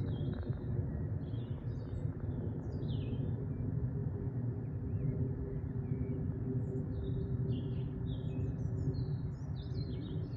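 Distant twin-engine jet airliner passing high overhead: a steady low engine noise. Small birds chirp in short phrases during the first few seconds and again through the second half.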